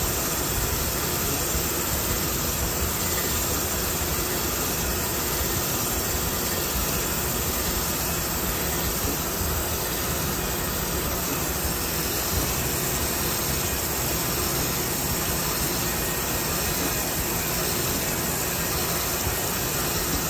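Crankshaft grinder running, a steady, even mechanical noise with no distinct tone or rhythm, as a crankshaft is set up and checked for runout before its journals are reground.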